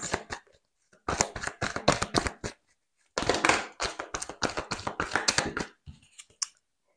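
Oracle cards being shuffled by hand, coming in three bursts of rapid flicking and snapping with short pauses between them, then a few light taps as cards are set down near the end.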